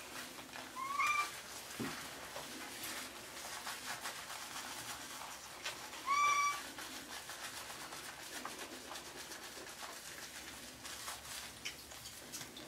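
A cat meowing twice while being bathed in a tub: two short calls about five seconds apart, each rising slightly at the start and then held.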